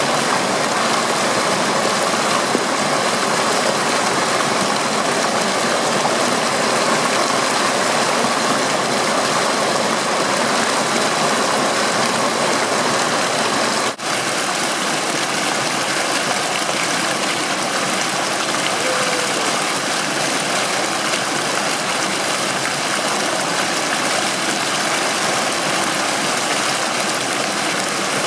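Small waterfall: water pouring and splashing over rock in a steady rush, which cuts out for an instant about halfway through.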